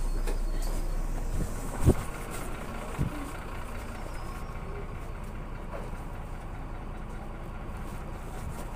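Irisbus Crealis 18 GNV articulated bus's natural-gas engine running steadily at low revs. A sharp thump comes about two seconds in and a smaller knock a second later, after which the engine settles a little quieter into a steady idle.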